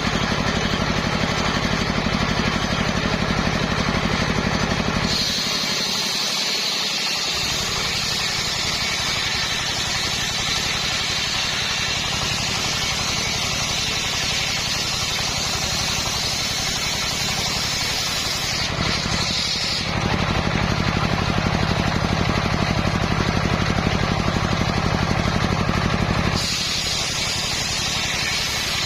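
Circular saw running steadily through hard coconut-palm wood. Its sound shifts several times, from a strong low hum to a brighter, higher-pitched tone about five seconds in, back to the low hum around twenty seconds, and to the brighter tone again near the end.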